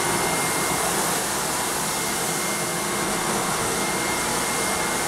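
A single-disc rotary floor buffer runs over a hardwood floor together with a backpack vacuum drawing its dust, making a steady rushing noise with a thin high whine. The buffer is screening the old finish to scuff up the top layer for a recoat.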